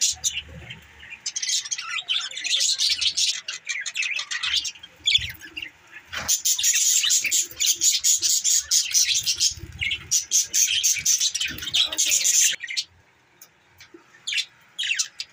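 Budgerigars chattering and chirping in fast, dense high-pitched warbles, with a short lull near the end.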